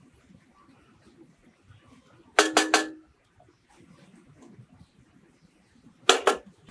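A metal spoon clinking against metal cookware: a quick run of three ringing clinks about two and a half seconds in, then two more near the end.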